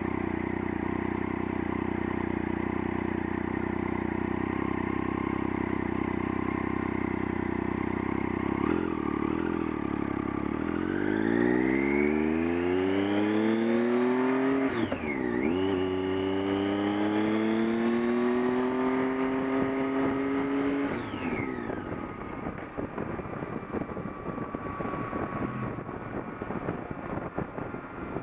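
Vehicle engine idling steadily in neutral, then revved up about a third of the way in and held at higher revs before dropping back about three-quarters of the way through. After it drops, a rough buzzing sets in, the strange noise the owner is trying to track down.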